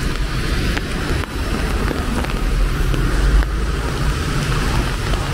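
Road traffic on a rainy city street: a steady low rumble with an even hiss.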